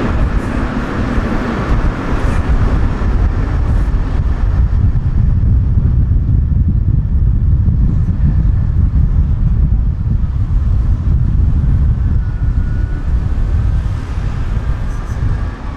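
A tram running along the track, heard from inside the car: a steady, loud, low rumble of wheels on the rails and the running gear. Faint high squealing tones come in near the end.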